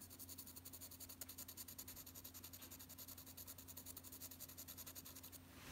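Graphite pencil held on its side, shading on drawing paper in quick back-and-forth strokes, about eight a second: a faint, rapid scratching that stops shortly before the end.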